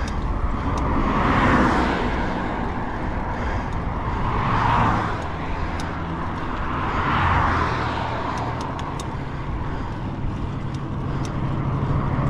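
Road traffic passing: vehicles on a highway swelling and fading one after another over a steady low rumble.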